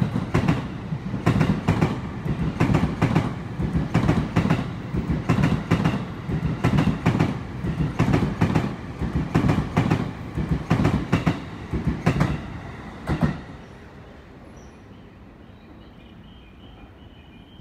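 E257 series train passing through the station without stopping, its wheels clicking over the rail joints in a steady rhythm over a rumble. The clicking stops about 13 seconds in as the last car clears.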